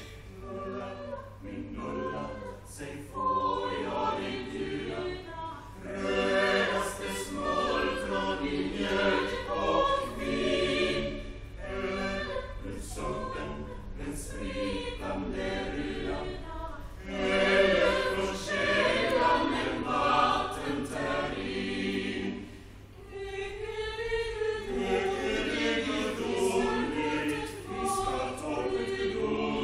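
Mixed vocal ensemble of men's and women's voices singing in harmony, in phrases with short breaths between them and a brief drop in loudness a little past the middle.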